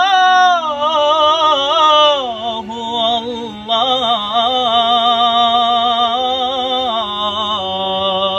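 A man's voice singing an Islamic devotional inshad, drawing out a long melismatic phrase with rapid trill-like ornaments. The pitch drops about two seconds in, then long wavering notes are held.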